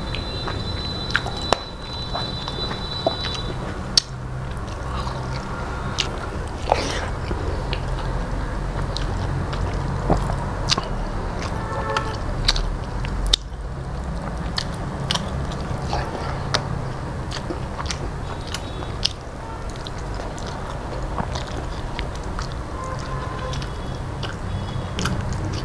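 Close-miked chewing and mouth sounds of a man eating rice and curry with his fingers: scattered sharp smacks and clicks over a steady low hum.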